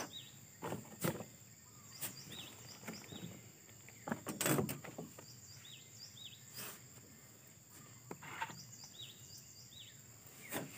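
Light clicks and knocks of small metal parts being handled on a partly assembled Motoyama 6200 chainsaw engine while the piston-pin circlip is fitted, with a cluster of louder knocks about four seconds in. A bird chirps repeatedly in short pairs of calls, over a steady high insect drone.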